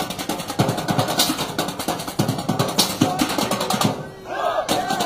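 Street percussion played with drumsticks on galvanized metal trash cans: fast, dense drumming with loud clanging accents about every second and a half. Near the end the drumming breaks off for a moment.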